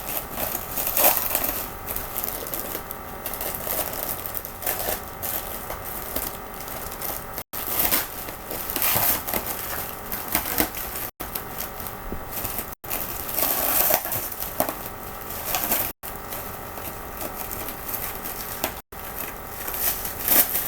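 Packaging being unwrapped by hand: irregular crinkling and rustling, broken several times by brief silent cuts.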